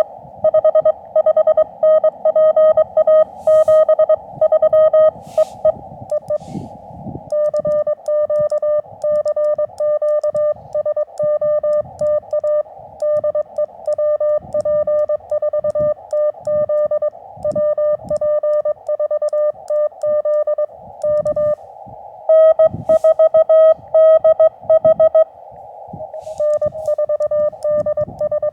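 Morse code (CW) from a ham radio transceiver: a steady beep near 600 Hz keyed on and off in rapid dots and dashes, over receiver hiss. The sending stops briefly about six seconds in and again near the end, then resumes, and the tone's strength shifts between runs. Low, uneven rumbling sits underneath.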